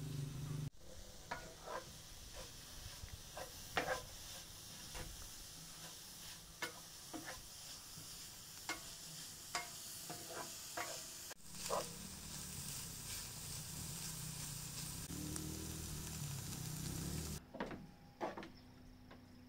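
Tofu and green garlic sizzling in a frying pan over a portable gas burner, with a wooden spoon stirring and knocking against the pan many times. Near the end the sizzle gives way to a quieter stretch with a couple of light knocks.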